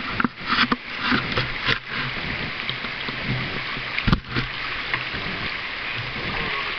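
Shallow river water rippling and rushing steadily over a stony riffle. There is a scatter of knocks and splashes in the first two seconds, and one sharp knock about four seconds in.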